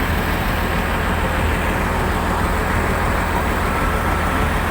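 Heavy vehicle engine running steadily with a low, constant drone, with a loud even rushing noise over it.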